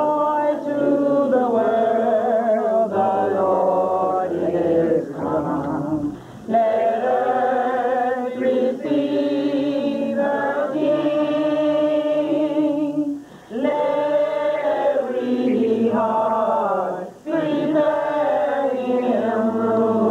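A group of people singing together unaccompanied. The song comes in four long phrases of held notes, with short breaths between them.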